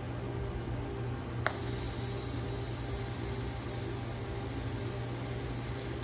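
TIG welding arc striking with a sharp crack about a second and a half in, then burning with a steady high-pitched buzz and hiss on steel. A low steady machine hum runs underneath throughout.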